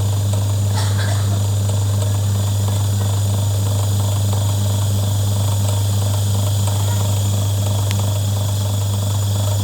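Wash motor of an old twin-tub washing machine running, a strong steady electric hum with a mechanical whirr over it, cutting off suddenly at the end.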